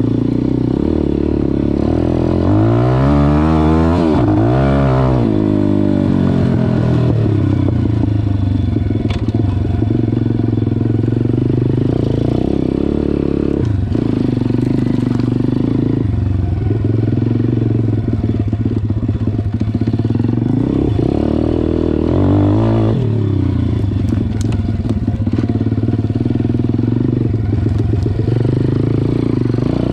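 MRF 140 RC-Z pit bike's single-cylinder four-stroke engine running under way, revving up and down through the gears. There are bursts of throttle about three to five seconds in and again about twenty-two seconds in.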